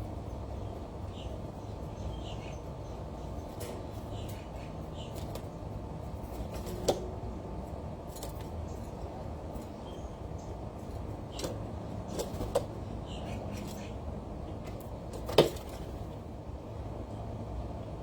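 A few sharp taps and clicks on a bird feeder, the loudest about fifteen seconds in, over a steady low outdoor rumble.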